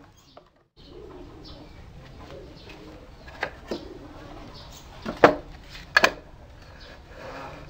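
Wooden boards fitted with metal drawer slides being handled and set down on a wooden workbench: a few sharp knocks, the loudest about five seconds in, then a quick double knock. Birds coo faintly in the background.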